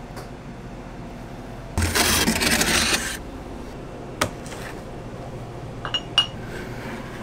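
Handling a large plastic ice cream tub: a loud rubbing, scraping noise lasting about a second, then a single sharp knock as the tub is set down on a plastic cutting board, followed by a few light clicks.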